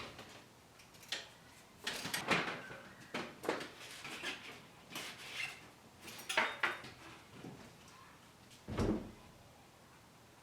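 A string of knocks and clatters, like drawers and doors being opened and shut while things are handled, with a heavier low thump near the end.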